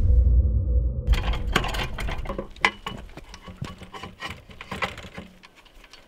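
Scattered light metallic clicks and knocks as a hitch bar is handled and coupled between two off-road electric wheelchairs. In the first second a deep boom dies away.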